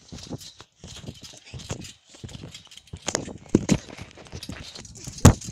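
Feet in rubber rain boots stepping and bouncing on a trampoline mat: a string of irregular soft thumps, the loudest about three seconds in and again near the end.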